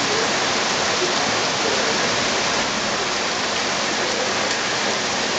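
Heavy rain pouring steadily onto tree leaves, a dense even hiss of downpour with no let-up.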